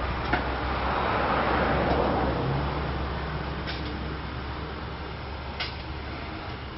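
Steam hissing from a standing Climax geared steam locomotive. The hiss swells over the first couple of seconds and then slowly dies away, and three light metallic clicks come through it.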